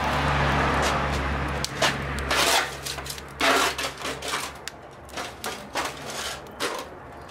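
Burning charcoal in a kamado grill's firebox crackling and popping, with irregular sharp clicks and knocks, over a steady low hum that dies away about four seconds in.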